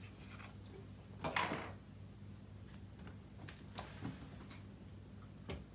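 Faint handling noises: a brief rustle about a second in, then a few small scattered clicks, over a steady low hum.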